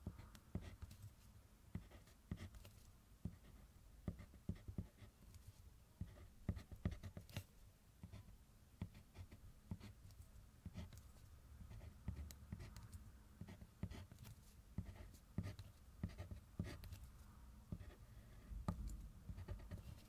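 Diamond colored pencil writing on kraft paper: faint scratches and light taps of the tip as it is set down and lifted for short, separate strokes.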